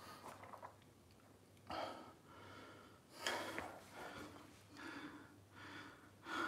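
A man breathing hard while he recovers from exercise: a series of short, heavy breaths, coming about once a second in the second half.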